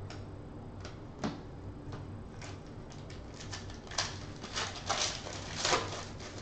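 Trading cards handled, with a single light tap just over a second in; then a foil Panini Contenders card pack crinkling and tearing open in a run of crackles, loudest near the end.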